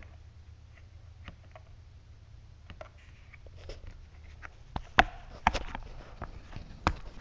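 Clicks and knocks of a clear plastic drill-bit case being handled, the sharpest about five seconds in and again near the end, over a faint low hum.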